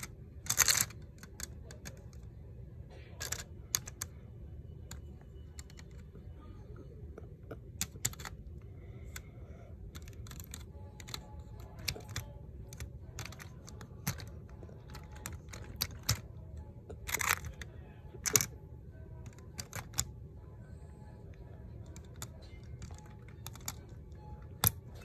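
Irregular light clicks and taps of plastic Lego parts being handled, with a couple of louder clattery bursts, one about a second in and another about two-thirds of the way through, over a low steady background hum.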